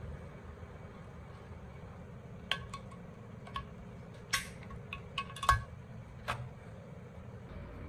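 Metal tools, a screwdriver and a thin scraper blade, clinking and scraping against the glass of a CRT picture tube around its anode cap: about eight short, sharp clinks at irregular intervals, the loudest about five and a half seconds in.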